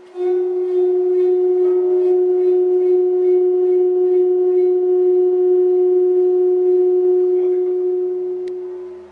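A vibrating metal Chladni plate sounds one steady, pure, mid-pitched tone with faint overtones, starting abruptly and fading out near the end. The tone is the plate resonating as it shakes the coloured sand into patterns.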